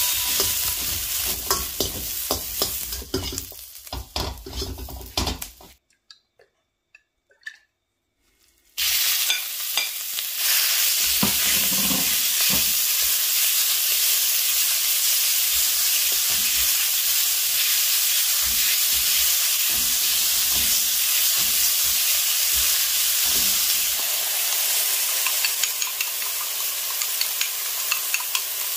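Onion slices sizzling in a hot wok, with the clicks and scrapes of a metal slotted spoon stirring them. After about three seconds of near silence, thin slices of beef fry in the wok with a steady sizzle, stirred and scraped with the metal spoon.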